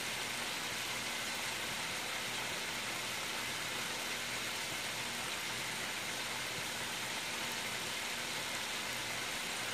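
Steady sizzle of hot oil frying on the stove: sliced potatoes in a skillet and a batch of flour-dredged chicken wings.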